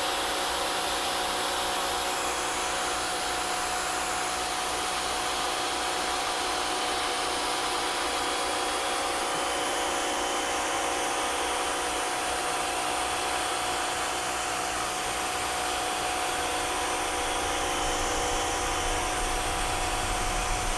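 Electric pressure washer (Rock & Rocker, 3000 PSI) running with the trigger held: the 40-degree tip's spray hisses steadily against a garage door panel, with a steady whine in it.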